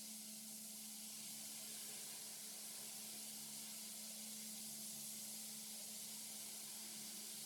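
Faint steady hiss with a constant low hum underneath. No distinct event.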